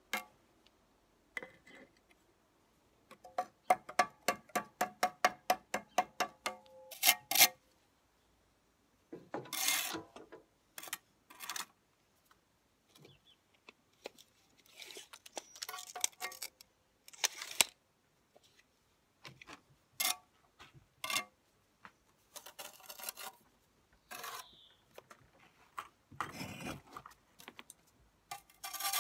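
Bricklayer's steel hand tools working fresh mortar on a brick soldier course. A quick run of light metallic taps, about four a second, lasts a few seconds, then short scrapes of steel on mortar and brick come every few seconds.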